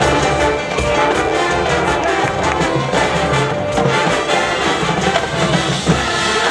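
Marching band brass section playing loudly together, trumpets and trombones carrying the melody over steady band accompaniment.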